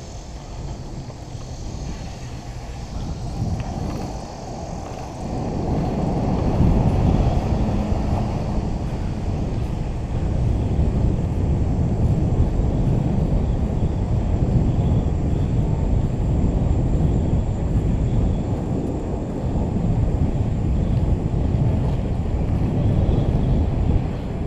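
Wind buffeting the microphone along with rolling road noise from a moving ride, a steady low rumble with no engine note, growing louder about five seconds in.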